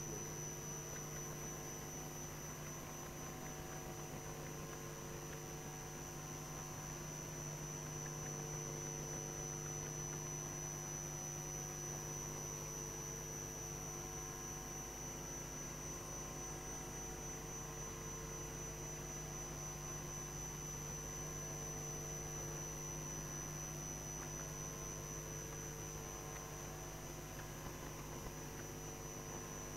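Steady electrical mains hum with a thin, steady high-pitched whine above it, picked up through the chamber's open microphone feed; nothing else stands out.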